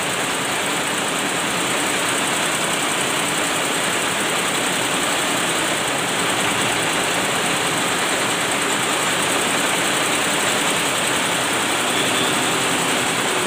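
Multi-head industrial computerized embroidery machine running, its needle heads stitching in a steady, dense mechanical noise.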